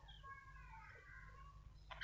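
Faint budgerigar chatter: soft, short pitched notes at low volume, over a steady low hum.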